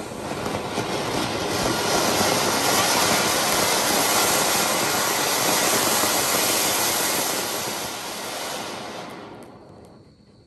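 Flower pot (anar) firework fountain burning with a loud steady hiss as it sprays sparks. The hiss builds over the first couple of seconds, then fades out near the end as the fountain burns out.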